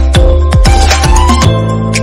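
Background music with a steady drum beat that drops out about one and a half seconds in, leaving held chords.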